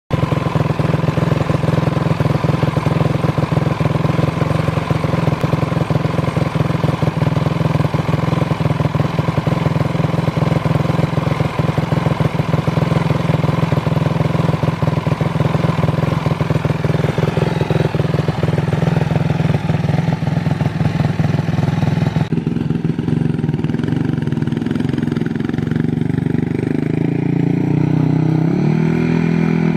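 Yamaha YFZ450 sport ATV's single-cylinder four-stroke engine idling steadily, heard close. About 22 seconds in the sound changes abruptly as the quad is heard from farther off, and near the end the engine rises and falls in pitch as it is revved and ridden.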